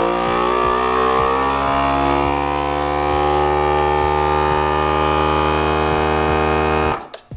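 FoodSaver GameSaver Outdoorsman vacuum sealer's pump running, a steady whine as it sucks the air out of a bag holding a salmon fillet and draws the bag tight. Its pitch settles slightly lower over the first couple of seconds, then holds until it cuts off suddenly near the end as the sealer finishes and seals the bag.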